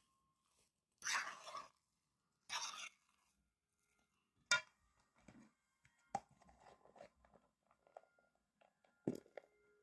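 Shredded cheese being mixed into mashed potatoes in a bowl: two short squishy scraping strokes, then a sharp click and a run of light taps and knocks of a utensil against the bowl.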